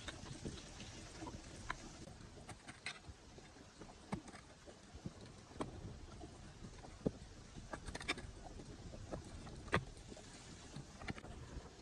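Hoe striking and scraping loose soil: irregular knocks and clicks at uneven intervals, the sharpest about seven and ten seconds in, over faint outdoor background noise.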